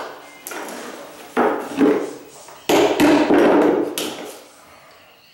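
Hammer striking the nails of carpet tack strip to fix it to the floor: about five sharp, unevenly spaced blows, each with a short ring.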